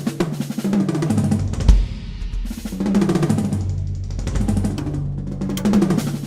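Drum kit played in fast fills: rapid rolls around the toms, stepping down in pitch, with kick drum and snare strikes.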